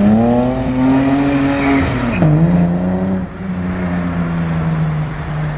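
Car engine revving hard and held at high rpm. Its pitch climbs slightly, drops sharply about two seconds in, then holds steady at the lower pitch.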